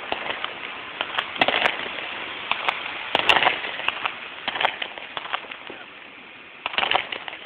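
Fireworks going off: sharp pops and crackling, louder in bunches about a second, three seconds and nearly seven seconds in.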